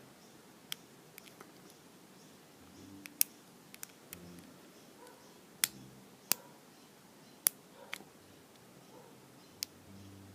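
Sharp, irregular clicks and ticks of metal picking tools working inside a Brady Abus compact safety padlock, about eight in all, while the spring-loaded core-release pin is pushed in and down to free the core.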